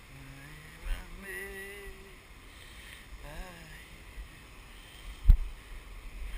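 Steady rush of wind and surf at a rocky shore, with faint voices in the first few seconds and one sharp low thump about five seconds in.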